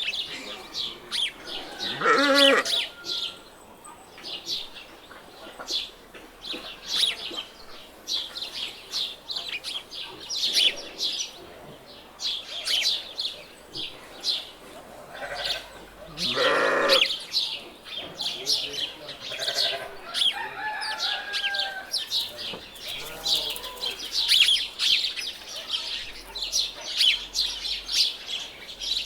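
Farmyard ambience: small birds chirping continuously, with louder farm-animal calls standing out about two seconds in and again around the middle, and weaker calls a little later.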